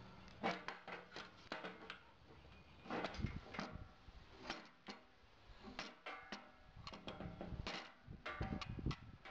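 Irregular small clicks and taps as a knife blade is set into, handled in and lifted from the metal blade clamp of a RUIXIN PRO knife sharpener.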